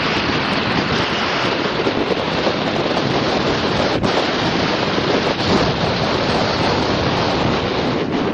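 Strong mountain wind blasting the camera microphone: a loud, steady rushing noise.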